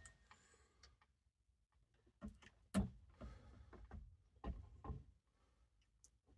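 A few light knocks and clunks, about five of them spread over two and a half seconds, the second the loudest.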